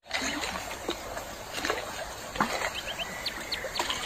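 Shallow stream running over pebbles, with stones clacking and knocking as they are shifted by hand in the water. A bird chirps a run of short high notes about two-thirds of the way through.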